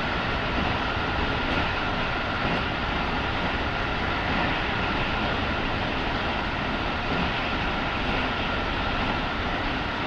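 Keikyu 1000 series electric train running at steady speed between stations: an even rolling noise of wheels on rail, with a faint steady tone through it.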